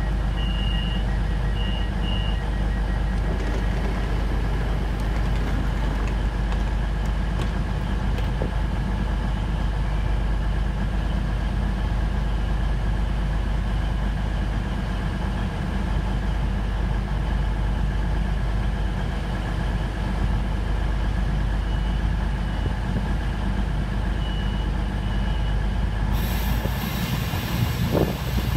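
CrossCountry Voyager diesel multiple unit standing at the platform, its underfloor diesel engines running with a steady hum. Three short high beeps of the door-closing warning sound near the start. A hiss comes in about two seconds before the end.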